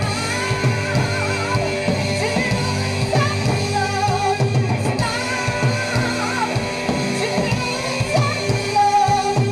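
Live rock band playing: a male singer over electric guitar, bass guitar and drum kit.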